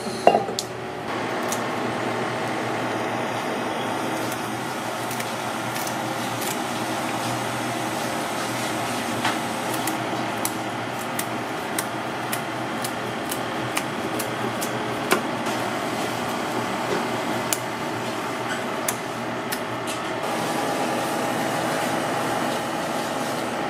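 Steady mechanical hum, like a kitchen's ventilation or refrigeration, with scattered light clicks and taps of kitchen scissors and a knife on a plastic cutting board as fish fins are trimmed.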